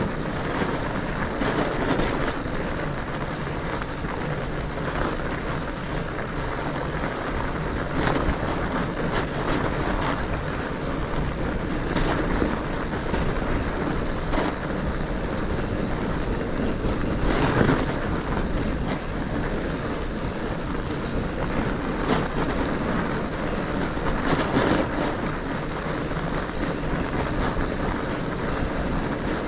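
Fat bike tyres rolling over a snowy, rutted trail, heard as a steady rushing mixed with wind on the action camera's microphone, with a handful of sharp knocks and rattles from the bike over bumps.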